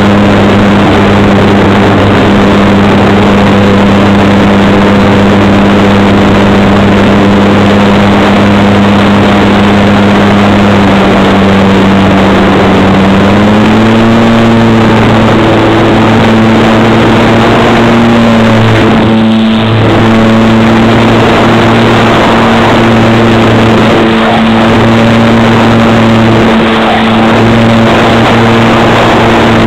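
Parkzone SE5a model plane's electric motor and propeller heard from its onboard camera, a loud steady drone with wind rush. The pitch steps up a little about 13 seconds in and dips briefly about 19 seconds in.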